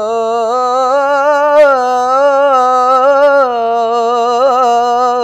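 A teenage boy's solo voice singing an Islamic ibtihal without accompaniment, holding one long melismatic vowel whose pitch slowly rises and falls, with a quick trill about four and a half seconds in.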